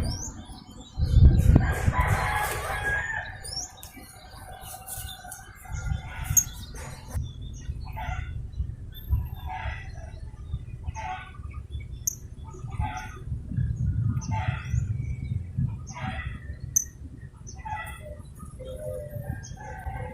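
A rooster crowing about a second in, then a string of short calls repeating about every second and a half, over a low rumble.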